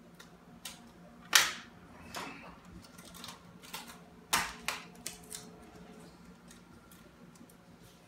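Tape being torn from a roll and pressed onto the counter-top edge banding: a few short, sharp snaps and clicks, the loudest about a second and a half in and another about four and a half seconds in.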